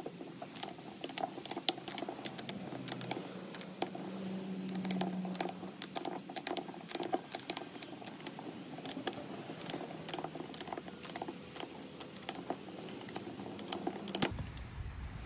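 Many irregular small metallic clicks and clinks as a 3/4-inch open-end wrench is worked in short strokes on the nut of a pilot bearing puller, drawing a spindle bearing out of a Dana 44 spindle.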